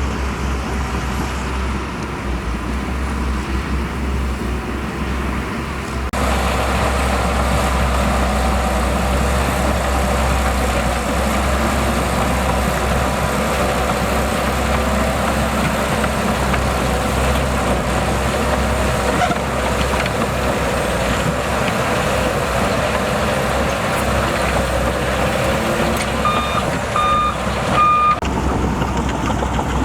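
Shantui DH17C2 bulldozer's diesel engine running steadily with a deep rumble, getting louder about six seconds in. Near the end, three short beeps of a reversing alarm.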